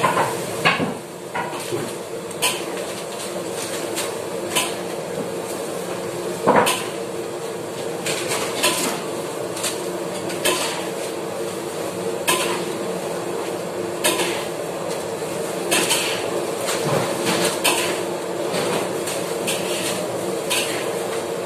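Clatter of dishes and clear plastic food containers being handled and set down on a stainless-steel counter while food is laid out: sharp, irregular clicks and knocks every second or two, over a steady hum.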